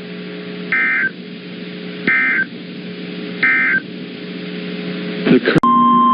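Emergency Alert System end-of-message signal: three short screeching digital data bursts about a second and a half apart, over a steady broadcast hum, marking the end of the warning. Near the end, after a click, a loud steady NOAA Weather Radio warning alarm tone starts, the alert tone that comes before a new warning.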